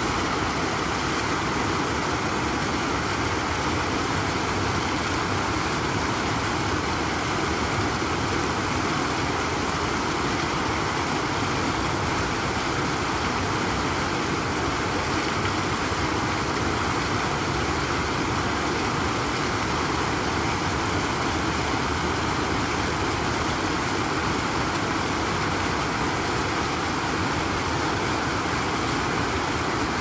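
Rows of vertical water jets in a fountain splashing back into a shallow pool: steady, even splashing with no change in level.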